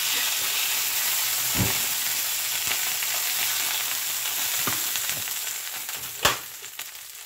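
Steaks sizzling in a cast iron skillet, a steady frying hiss that fades toward the end. There is a light knock about a second and a half in and a sharp clack near the end.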